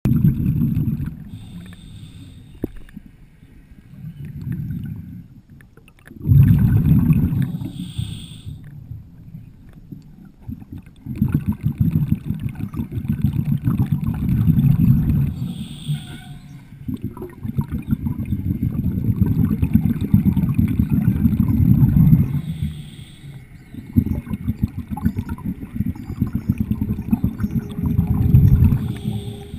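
Muffled underwater rumbling and bubbling heard through murky river water, in long bursts of several seconds each with short breaks between them and a brief hiss at several of the breaks.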